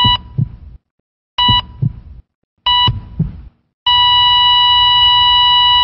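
Hospital heart-monitor sound effect: three short beeps, each paired with a heartbeat thump, then a continuous flatline tone about four seconds in, the signal that the heart has stopped.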